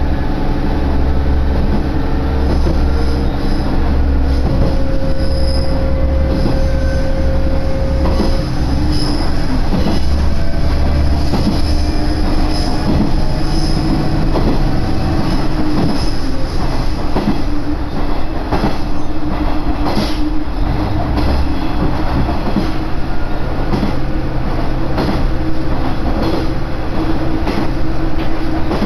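A railcar running along the track: a steady rumble of wheels on rail with a droning engine note. A steady whine is held for a few seconds about four seconds in, and rail-joint clicks come in the second half.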